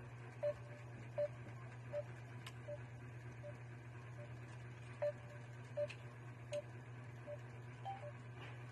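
A short electronic beep repeating evenly, about every three-quarters of a second, some beeps louder than others, over a steady low hum.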